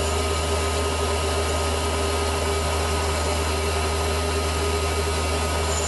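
Small metal-turning lathe running while turning down a small bar, a steady motor hum with a constant whine over it.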